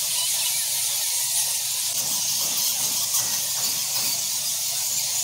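A large roosting colony of Geoffroy's rousette fruit bats squeaking and chattering all at once: a noisy, steady, high-pitched hiss of many overlapping calls.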